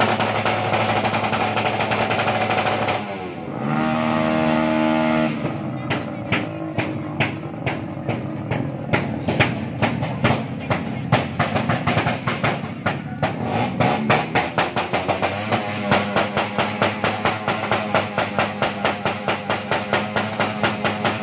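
Crowd noise with a motor vehicle engine revving and then holding a steady speed for a couple of seconds. This gives way, about six seconds in, to a steady beat of sharp drum-like knocks, about three a second, that runs on over the crowd.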